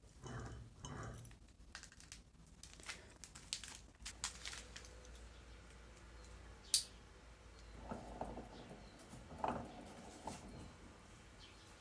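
Faint, scattered clicks and taps of small metal parts and a hex key being handled while a cast-iron electric motor and its bearing housing are reassembled, with one sharper metallic click about seven seconds in.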